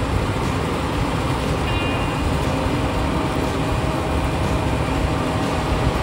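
John Deere combine harvester running steadily while it cuts and threshes wheat, a loud, even mechanical noise.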